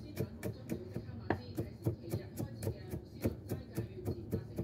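Chinese cleaver chopping garlic cloves on a wooden chopping board: a steady run of sharp knocks, about four a second, as the garlic is coarsely minced.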